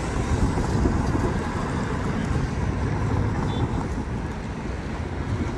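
City street traffic at an intersection: a transit bus and cars running and passing, a steady low rumble with some wind on the microphone.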